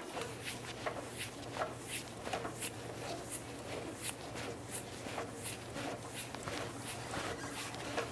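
Chevy Tahoe underbody spare tire hoist being cranked counterclockwise with the jack handle's extension rods through the bumper access port, clicking about twice a second as the cable pays out and the spare tire lowers.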